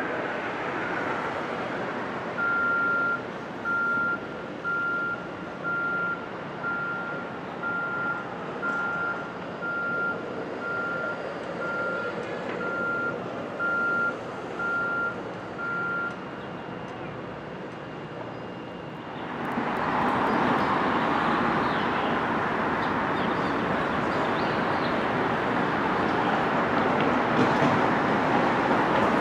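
Reversing alarm of construction equipment beeping at one steady pitch, about one beep a second for some fifteen seconds, over the steady noise of site machinery. About two-thirds of the way through, a louder, steady rushing noise sets in and continues.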